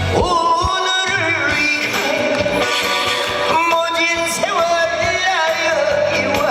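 Trot music played at full level: a melody line with gliding notes and vibrato over band accompaniment.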